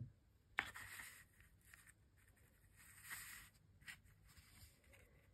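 Near silence with faint rustling and scratching of fingers rubbing and pressing on felt, in a few short strokes, the longest about three seconds in.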